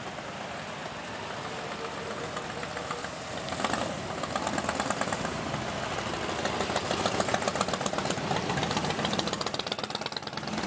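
A procession of motorcycles, Harley-Davidson touring bikes among them, riding slowly past at low revs. Their engines' rapid pulsing grows louder from about four seconds in as the bikes come close.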